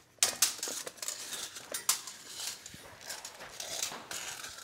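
Steel tape measure blade being drawn out and slid across a concrete floor: an uneven run of scrapes and clicks, sharpest just after the start and again about two seconds in.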